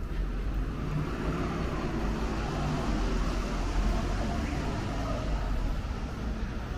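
Steady city traffic noise: a low, constant rumble and hiss of distant vehicles with no distinct events.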